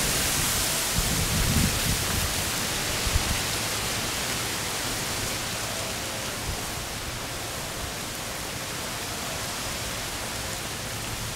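Steady outdoor hiss, with a few low thumps in the first two seconds.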